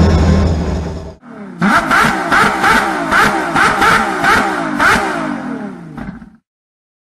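Car engine running loudly, heard from inside the cabin of a Lancia Delta Integrale, cut off about a second in. Then an engine revved in a rapid series of about a dozen sharp blips, roughly two or three a second, stopping abruptly near the end.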